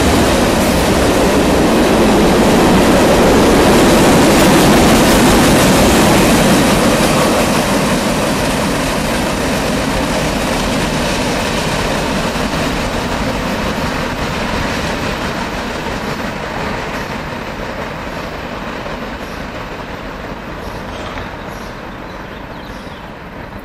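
Wheels of a long intermodal freight train rolling on the rails as its last cars pass and move away. The noise is loudest about four seconds in, then fades steadily as the end of the train recedes.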